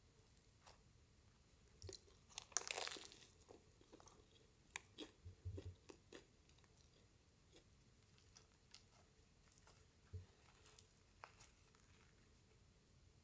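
Soft, freshly baked cheese-topped bread rolls torn apart by hand: faint crackling of the baked crust and crumb. The loudest crackle comes about two and a half seconds in, with scattered light clicks after, one near the end as another roll is pulled open.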